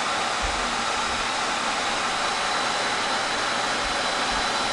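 Cooling fans of an external 12-bay SAS drive array running at high speed after power-up, a loud, steady jet-like whoosh with a thin steady whine over it.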